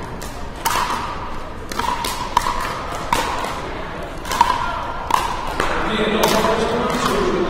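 Pickleball paddles striking the hollow plastic ball: a string of sharp pops at irregular intervals, echoing in a large hall. A murmur of voices runs underneath and grows louder near the end.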